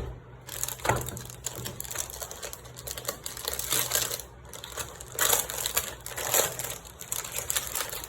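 Keyboard packaging being handled: plastic wrapping crinkling and rustling in irregular bursts as the keyboard is taken out of its box.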